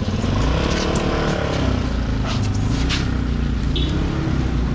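Motor vehicle engine running close by, a steady low rumble whose pitch rises and falls in the first two seconds, with a few light knocks.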